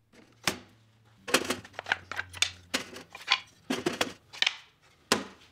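Irregular series of about a dozen short, sharp clicks and knocks, with near quiet between them.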